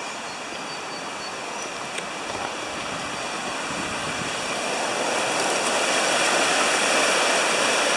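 River water rushing over a shallow rapid, a steady hiss of white water that grows louder over the first five or six seconds and then holds.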